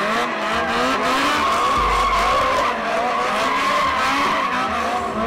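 A car's tyres squealing in one long, steady screech under wheelspin, with the engine revving up and down repeatedly underneath.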